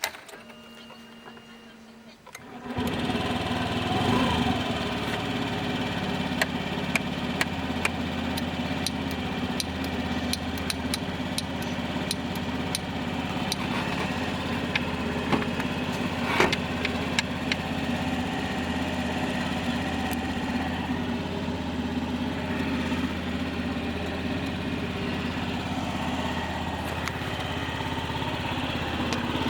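Honda Gyro Canopy scooter's 49cc four-stroke single-cylinder engine starting about three seconds in, revving briefly, then idling steadily with scattered light clicks.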